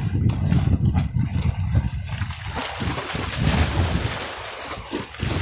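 Waves splashing against the riverbank, with wind buffeting the microphone in an uneven low rumble.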